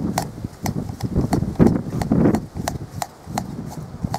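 A steady string of sharp clicks, each with a dull knock under it, about two a second, like hoofbeats or hard footsteps.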